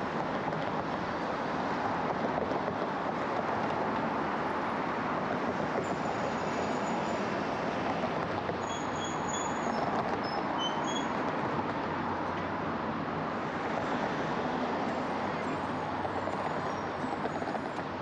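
Steady road and traffic noise from a car driving through city streets. A few faint, short high squeaks come in the middle.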